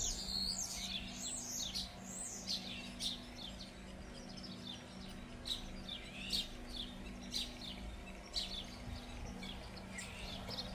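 Small songbirds chirping and twittering in quick, repeated short calls, busiest in the first few seconds, over a faint steady low hum.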